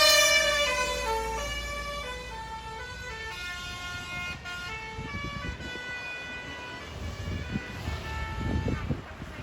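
Basuri telolet musical bus horn playing a tune of stepped, held notes, fading over the first few seconds as the bus draws away and then carrying on faintly. A low rumble swells near the end.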